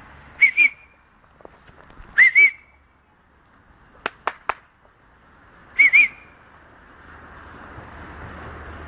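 Whistle blown as three pairs of short pips, each pip rising then falling slightly in pitch: one pair near the start, one about two seconds in, one about six seconds in. Three sharp clicks come between the second and third pairs.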